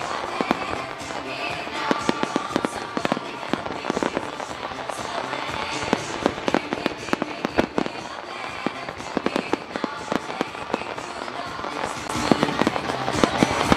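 A grand-finale barrage of aerial firework shells bursting in rapid succession: many sharp bangs, irregularly spaced, growing louder near the end. The display's music plays underneath.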